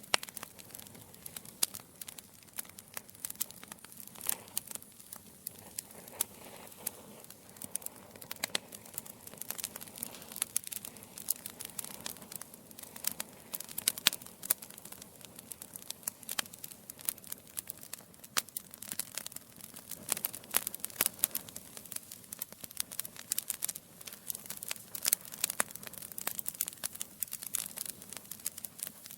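Logs burning in a fireplace, crackling with a dense, irregular stream of sharp pops over a faint hiss.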